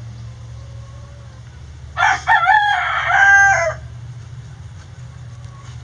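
Lavender (self blue) Old English Game bantam rooster crowing once at close range, about two seconds in, the crow lasting under two seconds with a short break near its start.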